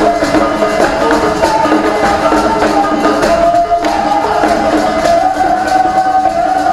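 Live traditional Beninese music: several voices singing together over steady hand percussion, with one note held from about four seconds in.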